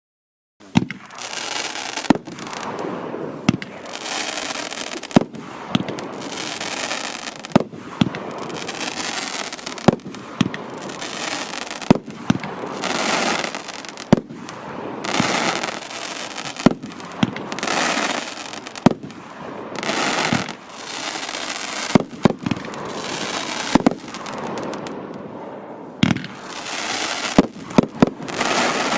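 A 16-shot consumer firework battery firing: a sharp launch bang about every two seconds, each shot followed by a couple of seconds of crackling as it rises with a crackling tail. Near the end several shots go off close together as the finale.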